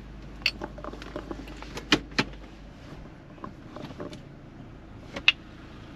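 Sharp clicks and knocks inside a Toyota's cabin as the car pulls away, over a low steady hum that drops out a little under halfway through.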